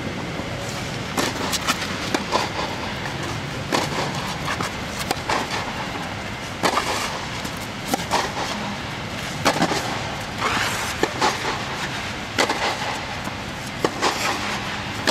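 Tennis rally on a clay court: sharp, short strikes of the ball off the racket strings and its bounces, coming every second or so, over a steady low hum.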